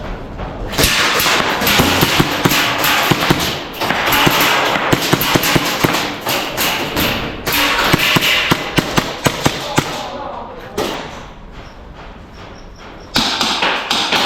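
A rapid run of sharp clicks and thuds over a steady rustling hiss, coming in several bursts; it quietens for a couple of seconds about ten seconds in, then is loud again near the end.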